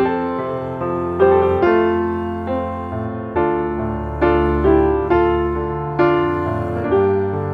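Background piano music: gentle melodic notes struck one after another, each fading before the next.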